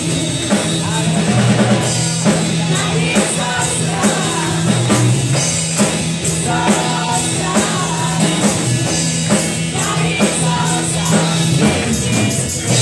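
Praise and worship song: women singing into microphones over drums and sustained bass notes with a steady beat.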